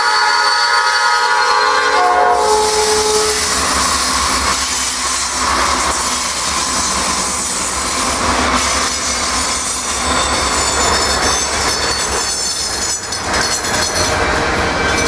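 Norfolk Southern freight train's lead GE Dash 9-40C diesel locomotive sounding its horn chord, which cuts off about two seconds in. The diesel locomotives then run past, followed by covered hopper cars rolling by on the rails.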